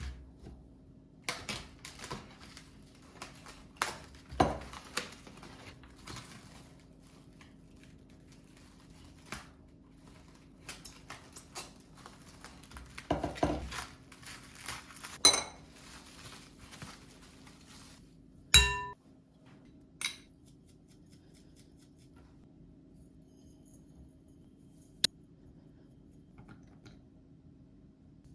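Dishes and cutlery being handled: scattered clinks and knocks, with one loud ringing clink about two-thirds of the way through.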